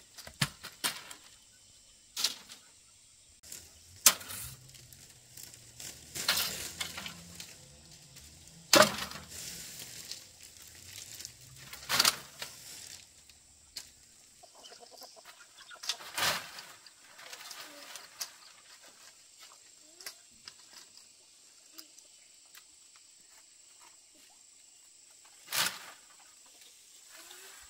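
Scattered sharp knocks and thuds at irregular intervals, with fainter rustling and scraping between them. The loudest knocks come about four and nine seconds in.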